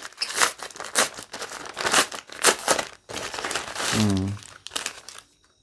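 Kraft-paper courier mailer being crumpled and torn open by hand: a rapid run of crinkles and rips.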